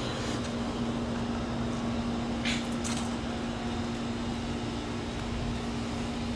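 Steady mechanical hum with one constant low tone, and two brief hisses about two and a half and three seconds in.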